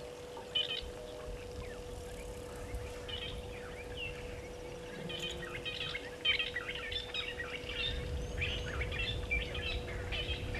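Wild birds chirping and calling in many short, quick notes, busier from about halfway on, over a steady faint hum and a low rumbling noise.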